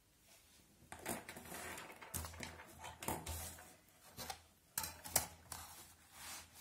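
A pencil compass and a plastic ruler being picked up and handled on a notebook page: a string of light clicks, knocks and rustles, the sharpest about five seconds in, as the compass is set against the ruler.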